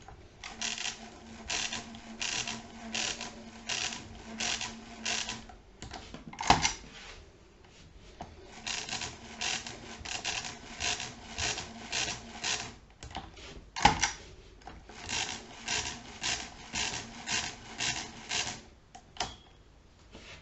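Schubert DRV mechanical calculator being hand-cranked: three runs of about eight or nine crank turns, each turn a sharp clatter of gears and ratchets, about two turns a second. A single louder clack comes between the runs, twice.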